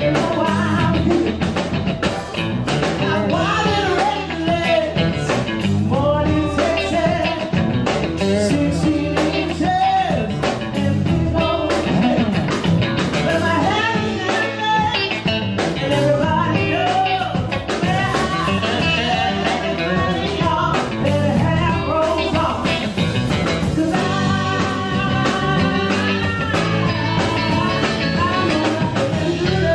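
Woman singing lead over a live blues band playing a drum kit and electric bass, with a steady beat throughout.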